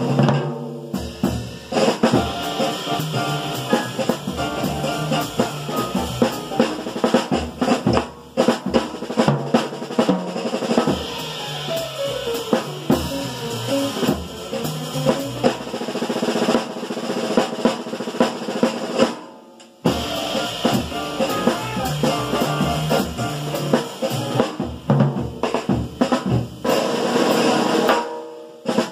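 Jazz drum solo on a small drum kit played with wooden sticks: busy snare, tom and bass drum strokes with cymbal, including rolls and rimshots. The playing breaks off briefly about two-thirds of the way through, then carries on.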